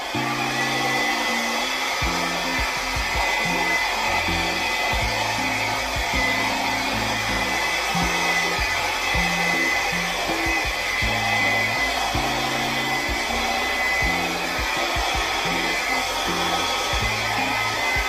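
Handheld blow dryer running steadily, blowing wet acrylic pouring paint across a canvas: an even rush of air with a thin steady whine. Soft background music plays underneath.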